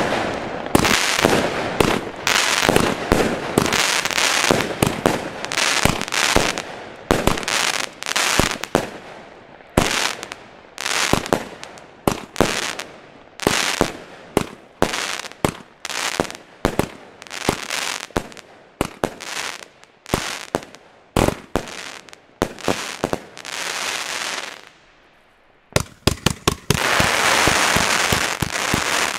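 Lesli Chainsaw Box consumer firework battery firing a long run of shots, each launch a sharp bang with a fading tail, about one to two a second. After a short lull near the end, a fast volley of bangs gives way to dense crackling from the crackling fire pots.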